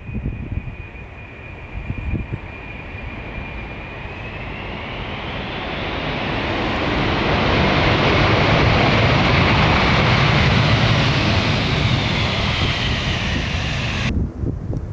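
Jet airliner's engines passing close: a high whine that rises in pitch about four seconds in, with engine noise swelling to its loudest past the middle and then cut off abruptly near the end.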